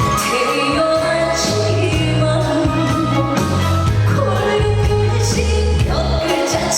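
Live trot song: a singer's voice over a band accompaniment with a steady bass line and repeated cymbal hits.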